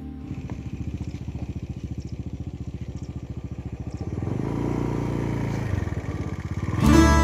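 A small engine running with a fast, even putter, getting louder for a moment in the middle; guitar music comes back in near the end.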